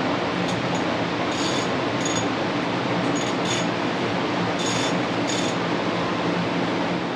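Light metallic clinks, about seven short ones scattered over several seconds, as tools and metal parts are handled at the rear axle of a Yamaha Grizzly 700 ATV during a CV shaft replacement. A steady fan-like hum and hiss runs underneath.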